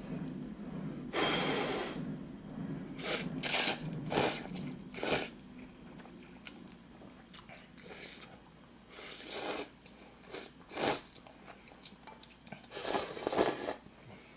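A person slurping ramen noodles in several short, loud sucks, with quiet chewing between them, then slurping hot broth from a bowl near the end.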